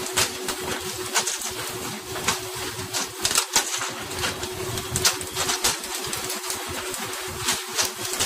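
Steady rush of sea spray and the boat running with a constant hum, broken by irregular sharp slaps and knocks as hooked tuna are swung aboard and land on the deck.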